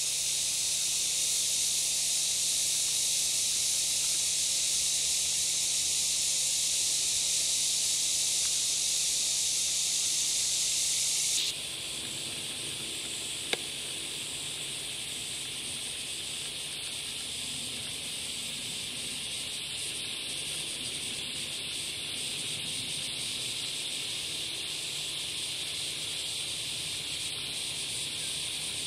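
Steady high-pitched hiss of an insect chorus in the vegetation, dropping suddenly to a quieter level about eleven seconds in, with a single sharp click a couple of seconds later.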